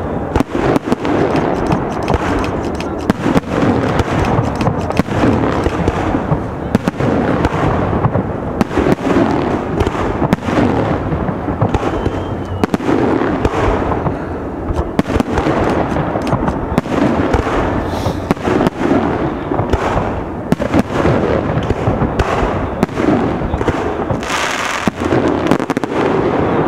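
Fireworks display of aerial shells bursting one after another: a dense, irregular run of bangs over a continuous din, with a brighter hiss near the end.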